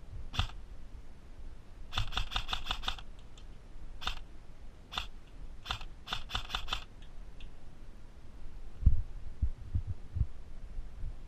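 Airsoft gun shooting: a single shot, a rapid burst of about seven, three single shots, then a burst of about five, each a sharp snapping click. A few dull low thumps follow about nine to ten seconds in, the first of them the loudest sound.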